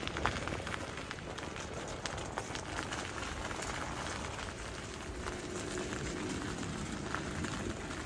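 Bicycle tyres rolling over icy, gritty pavement: a continuous crackling hiss with many small clicks scattered through it.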